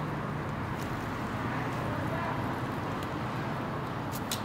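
Steady outdoor background noise, with a few sharp clicks near the end.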